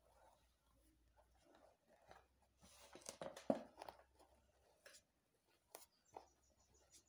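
Faint rustling and scratching of braiding hair being twisted and pulled between fingers, with a louder cluster of rustles about three to four seconds in and a few soft clicks near the end.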